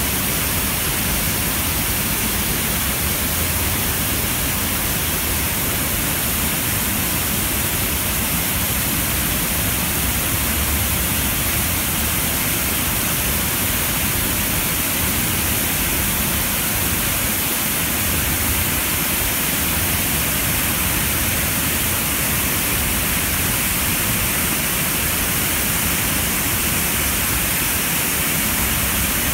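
Water pouring through the gate bays of a concrete river dam and crashing into the river below: a steady, even rushing.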